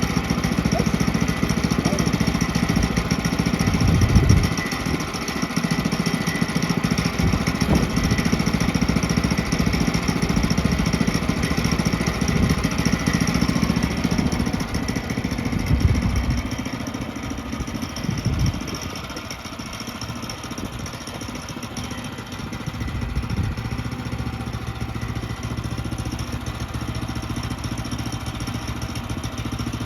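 Portable bandsaw mill running as its blade cuts southern yellow pine lumber, with the mill's engine humming steadily. A few knocks come through, and about 18 seconds in the sound drops to a quieter, steadier engine run.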